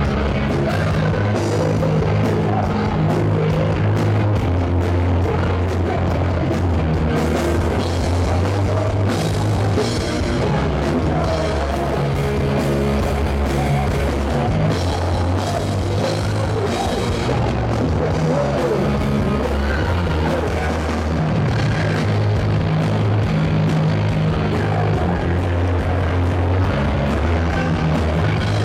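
Live rock band playing loud: electric guitars through Marshall amplifiers, with bass and a drum kit.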